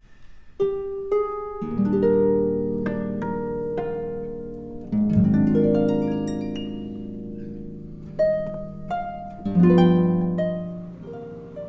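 Instrumental background music: single plucked notes start sharply and ring out over held chords.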